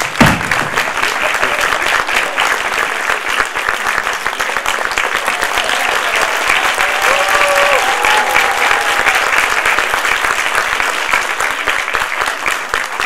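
Audience applauding steadily in welcome, with a faint voice or cheer heard about halfway through.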